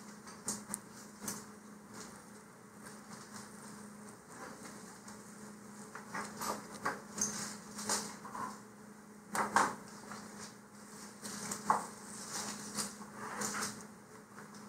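Hobby knife cutting out a paper shock cord mount on a cutting mat: irregular light scratching strokes, small clicks and paper rustles, with a couple of sharper clicks in the second half. A faint steady low hum runs underneath.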